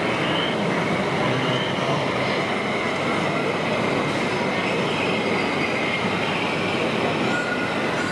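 Steady, even background din of a busy exhibition hall, with a faint steady high whine running through it.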